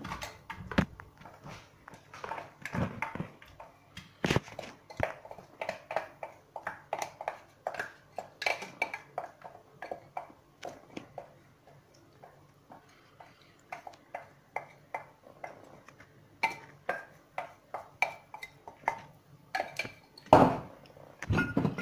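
A spoon tapping and scraping against a non-stick frying pan as grated onion is spread and knocked off into it: a run of light clinks and knocks, sparser for a stretch in the middle, with one louder knock near the end. The pan is still dry, so there is no sizzle.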